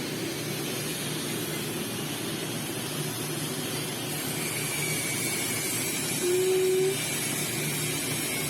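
TIG welding arc on stainless steel pipe, a steady hiss over a low hum. A brief steady tone sounds about six seconds in and is the loudest part.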